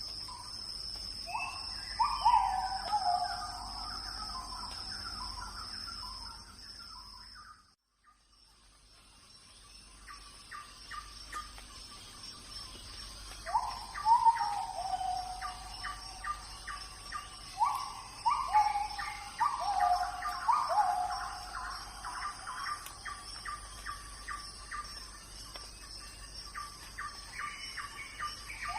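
Forest ambience: birds calling in repeated short falling phrases and quick chirps, over a steady high-pitched insect drone. The sound fades out briefly about eight seconds in, then comes back.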